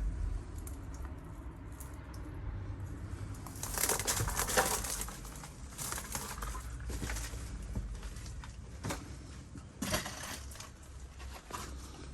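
Footsteps crunching and scuffing on loose ground, with irregular crunches and sharp clicks over a low steady rumble.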